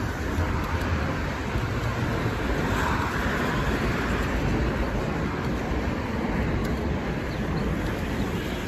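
Steady city street traffic noise, cars going by on the road, swelling a little about three seconds in.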